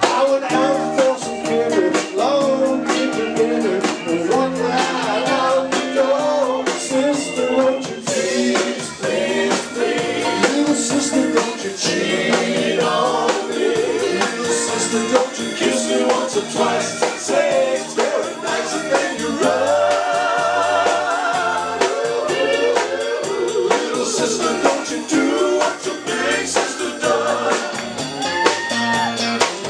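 Live rock band playing with vocals: electric bass, drum kit and saxophones.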